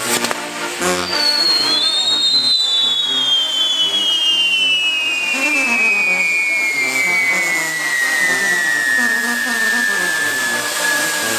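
Whistling fireworks on a castillo firework tower: a long whistle of two close tones that starts about a second in and slides slowly down in pitch for about ten seconds. A brass band plays underneath.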